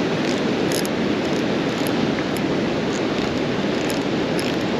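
Steady rushing of water pouring over and below a river dam, an even noise with no breaks.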